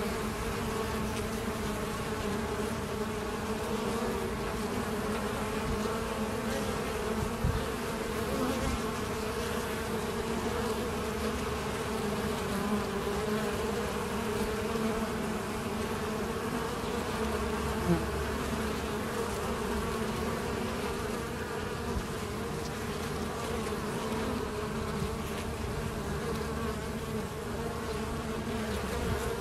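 Honeybees buzzing at a busy hive entrance: a steady, wavering drone of many foragers flying in and out.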